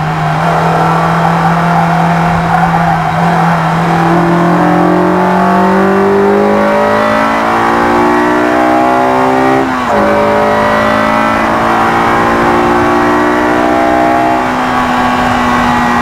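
Honda S2000's four-cylinder engine under hard acceleration, revving up steadily through third gear to about 7,000 rpm. It drops in pitch at a quick upshift about ten seconds in, then climbs again in fourth.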